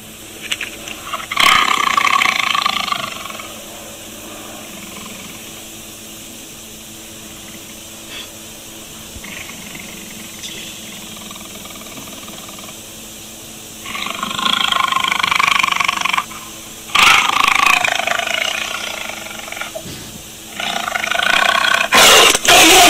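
A tiger roaring in four loud calls, each two to three seconds long: one about a second and a half in, then three close together in the second half.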